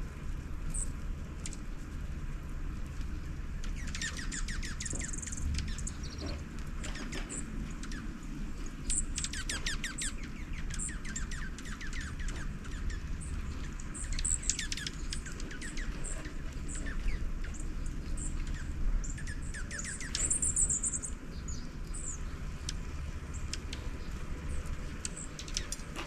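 Small songbirds calling: several runs of quick, high chirps, with a couple of short buzzy high notes, over a steady low rumble.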